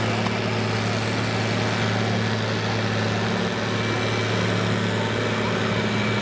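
Farm tractor's diesel engine running hard at steady revs as it drags a weighted pulling sled through dirt.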